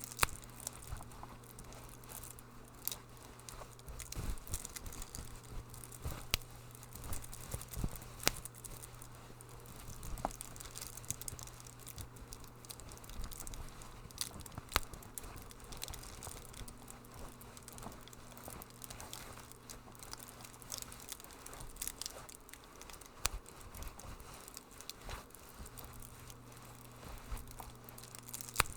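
Wood fire crackling in a fireplace: irregular snaps and pops, some sharper than others, over a low steady hum.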